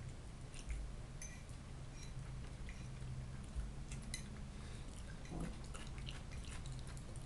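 Close-up chewing of fried potatoes, with a metal fork clicking and scraping on a plate many times.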